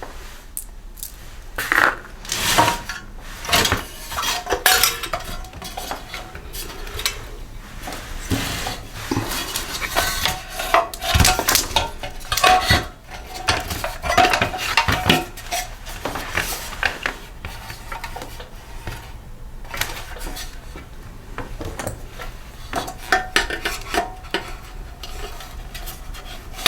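Metal hand tools and bolts clinking and clattering in irregular bursts as the 8 mm bolts come out and the recoil starter is taken off a small snowblower engine.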